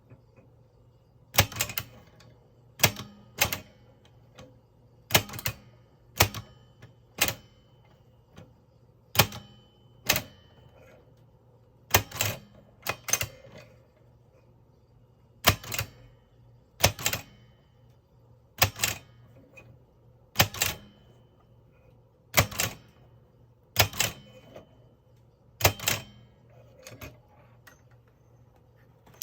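Mignon No. 4 index typewriter typing slowly: about twenty sharp mechanical strikes at uneven gaps, some in quick pairs, as each letter is chosen with the pointer and then printed with a key press.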